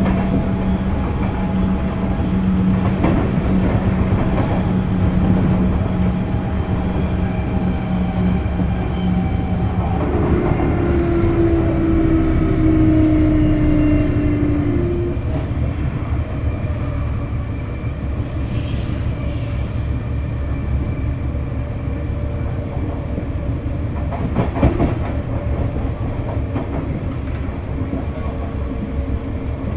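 Sotetsu 8000 series electric train with Hitachi GTO-VVVF traction equipment, heard from on board while running on the rails. A steady low tone gives way about ten seconds in to a higher tone that slides down in pitch. Two short hisses come a little past halfway, and a single knock follows a few seconds later.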